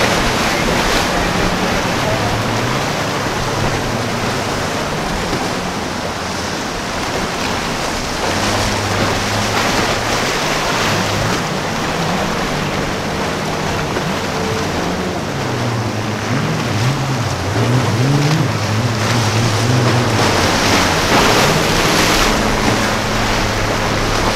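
Quad outboard engines of a Freeman sport-fishing catamaran running, a low hum that wavers and shifts in pitch, over the steady rush of surf and choppy water.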